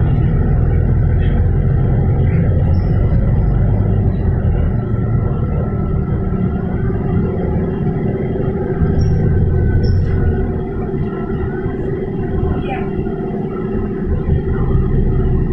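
Cabin noise of a Volvo B9TL double-decker bus under way: its diesel engine and drivetrain give a steady low rumble with a constant hum above it.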